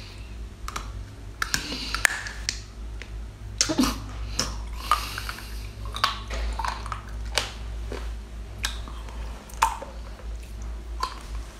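Close-up eating sounds of a person biting and chewing sauced lobster meat: irregular wet smacks and sharp clicks of the mouth, over a low steady hum.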